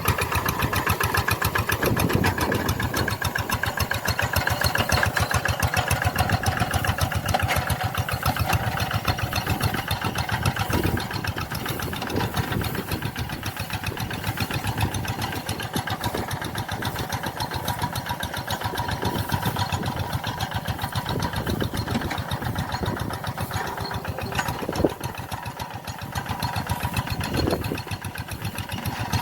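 Tractor engine running steadily with a fast, even firing beat. It settles slightly quieter about a third of the way in.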